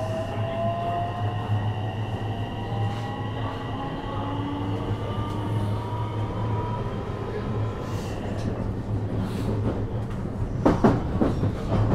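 JR West 321 series electric train's Toshiba IGBT VVVF inverter and traction motors accelerating, heard from inside the car: several whining tones rise in pitch together over a steady low hum. Near the end the wheels clack over rail joints.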